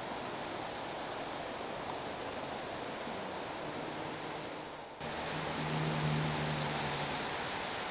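A steady rushing outdoor noise, with an abrupt shift about five seconds in and a faint low hum in the latter part.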